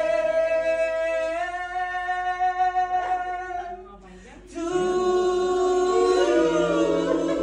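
Women singing a birthday song together without accompaniment, drawing out long held notes, with a short break about four seconds in.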